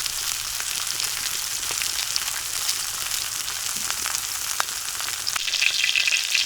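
Meat frying in a hot pan in its own rendered fat, a steady sizzle with scattered crackles. About five seconds in the sizzling grows louder and denser.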